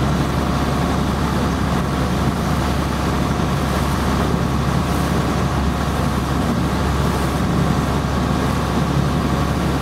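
A boat engine running steadily: a constant low drone with an even hum that does not change.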